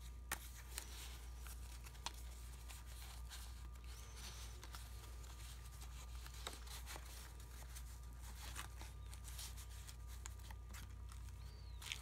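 Faint rustling and light taps of paper and card being handled: journal pages, tucked cards and envelope inserts being moved, turned and closed, over a steady low hum.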